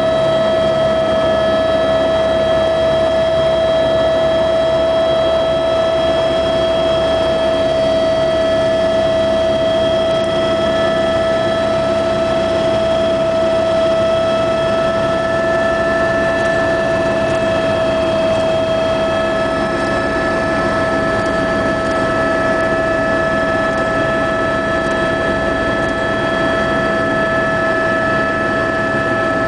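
Helicopter in flight heard from on board: a loud, steady engine and rotor drone with a strong steady whine and several fainter higher tones above it.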